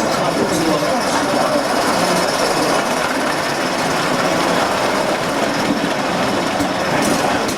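Gauge 1 model train running along the track: a steady rolling rattle of wheels on rail with a faint mechanical hum.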